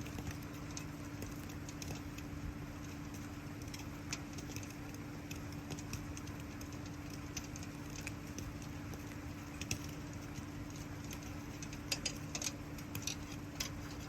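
Campfire crackling with scattered sharp pops, in small clusters about ten and twelve seconds in, over a steady patter of rain and a constant low hum.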